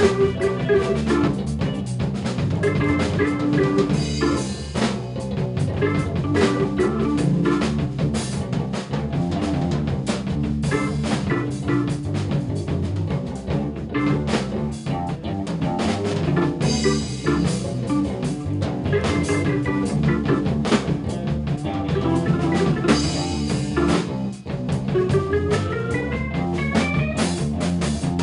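Instrumental band music: a drum kit plays a busy beat over electric bass, electric guitar and electric piano and organ. A rising glide in pitch comes in near the end.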